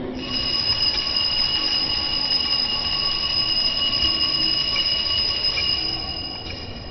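Altar bells rung continuously as the host is elevated at the consecration: a steady, high, jingling ring that dies away near the end.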